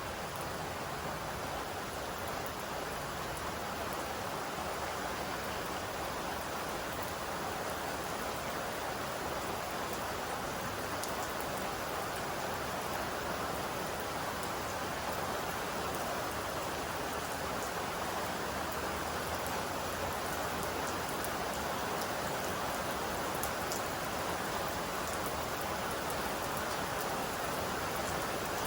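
Steady rainfall: an even hiss of rain with scattered drops pattering on surfaces, growing slightly louder toward the end.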